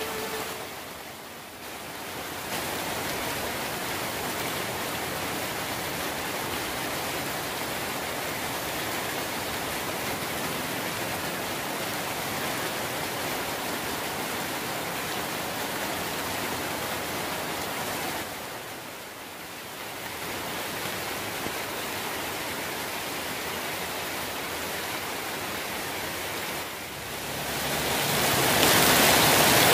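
Heavy tropical rain falling steadily, a dense even hiss of rain on leaves, roofs and wet ground. It dips briefly three times and is louder near the end.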